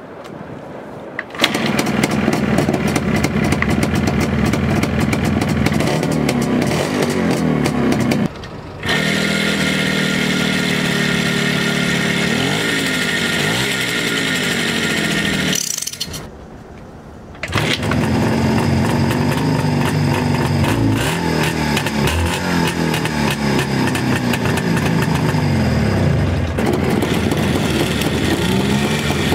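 Two-stroke engines of restored Soviet-era bikes, a Jawa 350 type 634 twin and a Riga-16 moped, running and being revved up and down on a cold day. The sound comes in three stretches with short breaks between them, at about 8 and 16 seconds in.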